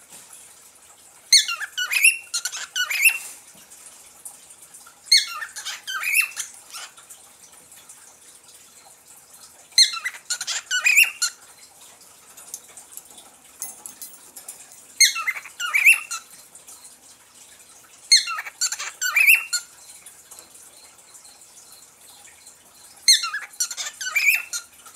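Cockatiel chirping in six short bursts a few seconds apart, each burst a quick run of sharp, sliding chirps.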